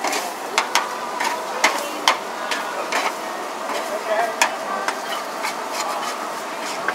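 Kuey teow noodles stir-frying in a wok: a metal spatula clanks and scrapes against the wok in irregular strokes, about twice a second, over a steady sizzle of frying.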